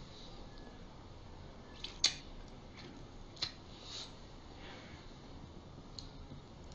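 A few sharp computer-mouse clicks over a faint steady hiss, the loudest about two seconds in and a pair of lighter ones over the next two seconds.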